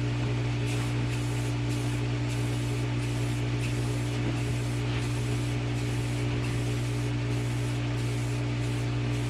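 Silver spray paint hissing steadily from the nozzle, the hiss briefly easing about twice a second, over a steady low hum.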